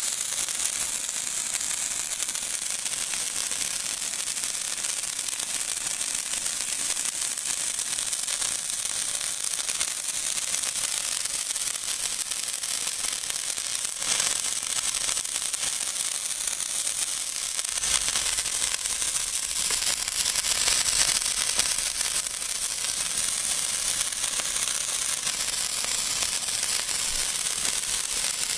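Old Moog Nico colour sparklers burning with a steady, high hissing crackle, the odd crackling that these old sparklers are known for. A low rumble joins about two-thirds of the way in.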